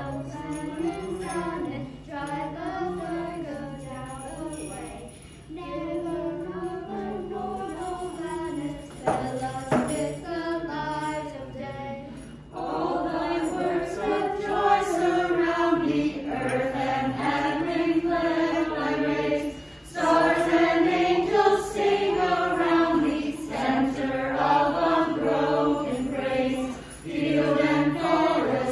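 A small group of carolers, adults and children together, singing a Christmas song from songbooks. The singing gets louder about halfway through.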